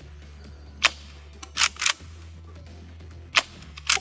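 Tokyo Marui KSG gas airsoft pump shotgun fired twice, about two and a half seconds apart. Each shot is a sharp pop, followed about a second later by a quick double clack as the pump is racked back and forward. Low background music plays underneath.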